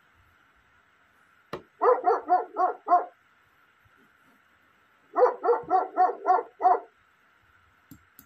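A dog barking off in the neighbourhood in two quick runs of about five or six barks each, a few seconds apart.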